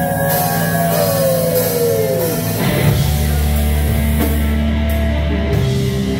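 Heavy metal band playing live at full volume. It opens with held ambient tones that slide down in pitch, then about two and a half seconds in the band comes in with low, heavy distorted guitars and bass over drums and cymbals.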